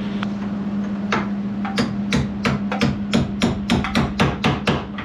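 A hammer striking metal about a dozen times, first a couple of spaced blows, then a steady run of about three to four a second, each with a short metallic ring, over a steady low hum.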